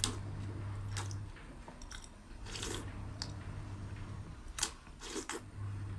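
Close-up mouth sounds of someone drinking water from a large bowl: wet smacks and swallowing clicks, repeated through the stretch.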